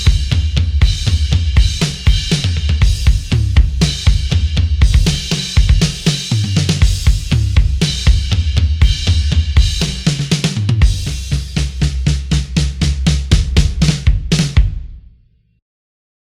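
Sampled rock drum kit from the EZdrummer 3 Hard Rock EZX library playing a groove of kick, snare, hi-hat and cymbals over a sustained low bass part. It closes with a fast, even fill of about eight strikes a second and a final hit that rings out and stops.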